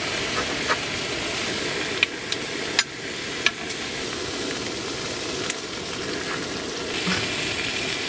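Food sizzling steadily in a frying pan, with a few sharp clicks.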